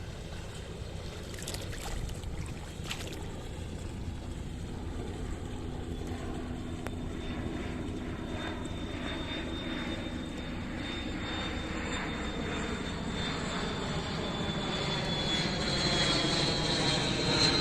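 A steady engine drone that slowly grows louder toward the end, then cuts off abruptly.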